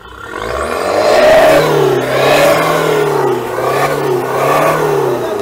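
Renault Duster's 1.5-litre four-cylinder turbo-diesel revved repeatedly through a de-catted, free-flowing aftermarket exhaust, the engine note rising and falling several times.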